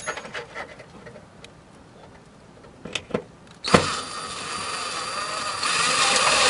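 Cordless drill with a Phillips bit driving a screw into the trunk lid's sheet metal. It starts with a knock about halfway through and runs steadily, a little louder toward the end as the screw tightens. A few light handling clicks come before it.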